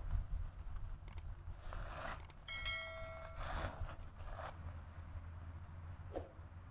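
Nylon tent fabric rustling and tent poles clicking as a dome tent is pitched, over a low steady rumble. About two and a half seconds in, a brief ringing tone sounds for under a second.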